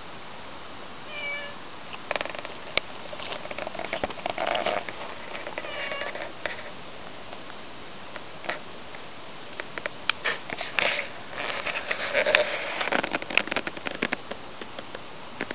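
A tabby cat meows twice, a short call about a second in and another about six seconds in. Gravel and dry leaves crunch and rustle in bursts, loudest in the second half.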